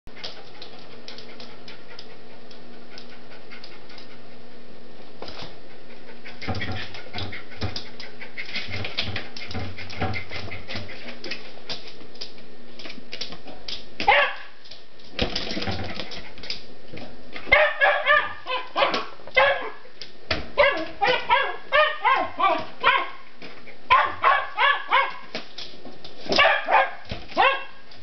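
Wire fox terrier barking in quick repeated bursts, several barks a second, starting about halfway through. Before the barking there is a steady hum with scattered clattering.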